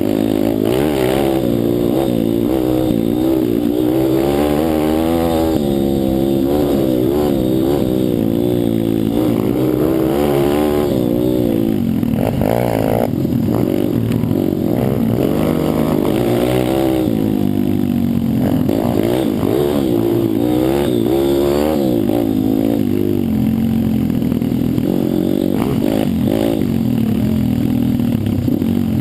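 Pit bike engine being ridden hard off-road, its revs rising and falling again and again as the throttle is worked, with some clatter.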